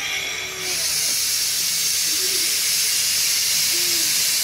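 Narrow-gauge steam locomotive 762 venting a jet of steam low down beside the track: a loud, steady hiss that starts about a second in.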